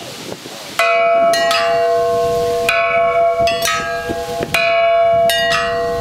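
Hanging metal bells struck again and again, about eight strokes in irregular groups starting about a second in. Each note rings on, and a low two-note hum carries between the strikes.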